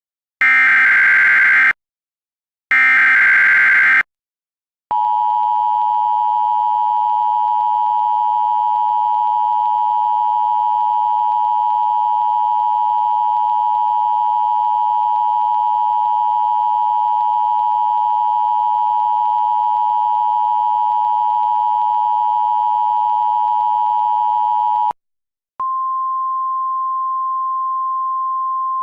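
Emergency Alert System tones: two bursts of SAME header data, each about a second and a half long, then the two-tone EAS attention signal held steady for about twenty seconds. It cuts off, and a single steady tone slightly higher in pitch follows: the 1050 Hz weather radio alert tone.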